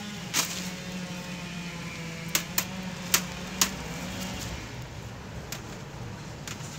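Several sharp metallic clicks and taps as a wire-mesh cage trap is handled with metal tongs, most of them between two and four seconds in, over a steady low hum.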